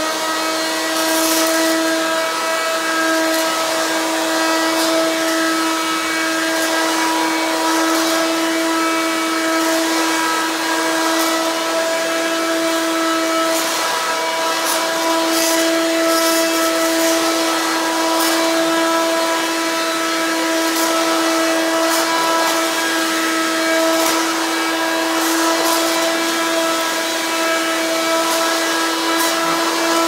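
Hoover Quik Broom S2141 stick vacuum running, a stupidly loud, steady pitched whine with a stack of overtones and scattered faint ticks over it. The owner puts the noise down to shipping damage: either the motor knocked out of balance or a busted fan.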